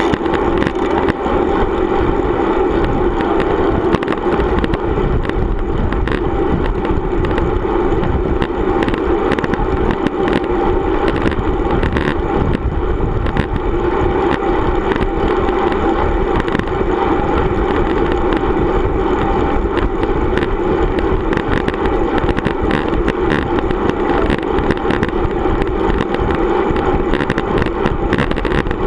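Steady wind and road noise picked up by a camera mounted on a road bicycle rolling along asphalt, with many small rattling clicks from road vibration.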